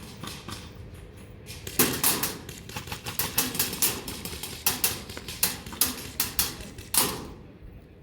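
Airsoft guns firing a rapid, irregular string of sharp clicking shots, the loudest about two seconds in and again about seven seconds in.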